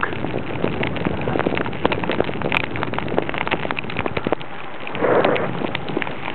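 Dense crackling and rustling close on the camera microphone, the sound of the camera being handled, with a short hiss about five seconds in.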